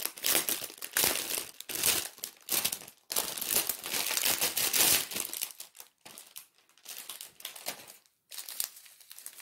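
Clear plastic wrapping crinkling as a taped roll of diamond-painting drill bags is handled. It is dense for about the first five seconds, then sparser and softer.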